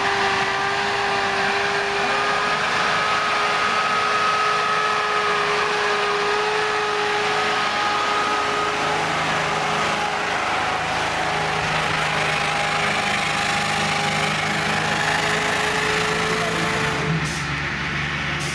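Star military truck driving past on a sandy track, its engine running under load with a steady high whine over the rumble. The whine cuts off about seventeen seconds in, leaving a lower engine hum.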